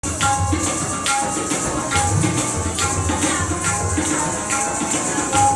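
Live tabla and harmonium playing together: the harmonium repeats a short melodic phrase over a steady tabla rhythm, with strong strokes falling a little under a second apart.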